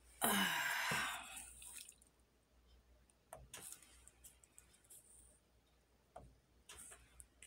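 A short, loud rustling noise lasting about a second near the start, then a few faint light taps and scrapes as a thin stick is drawn through wet acrylic paint on a canvas.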